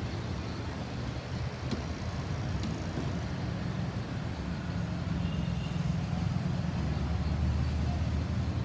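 Road traffic noise: passing vehicles' engines and tyres making a steady low rumble that gets a little louder about halfway through.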